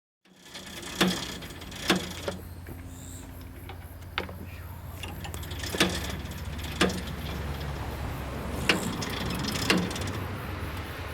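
A machine running with a steady low hum that starts just after the beginning and builds slightly, with sharp clicks or knocks every one to two seconds.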